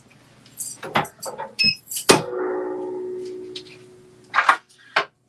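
Diamond Driver 15×15 clamshell heat press being pulled shut: a few clicks, then a loud metal clunk about two seconds in whose ringing tone fades away over about two seconds, and two more knocks near the end.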